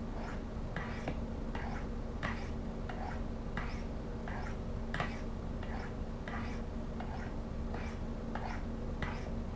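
Pocketknife blade drawn down the coarse ceramic rods of a V-shaped rod sharpener, alternating sides: a run of short, light scraping strokes, about two a second.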